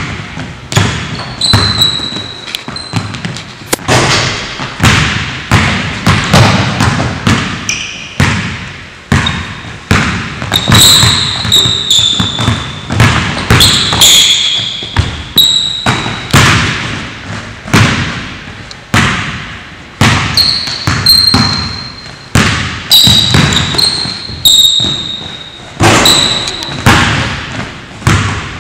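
Basketball bouncing hard on a hardwood gym floor during one-on-one play: a steady run of sharp bounces with short echoing tails, mixed with many brief high squeaks of sneakers on the court.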